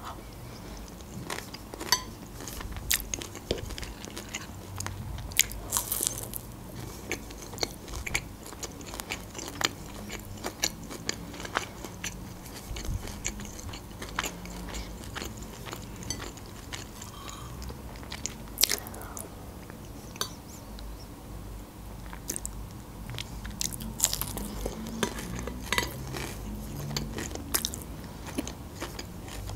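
Close-miked eating: crisp crunching bites into a breaded fried chicken cutlet and chewing, with scattered sharp crackles throughout.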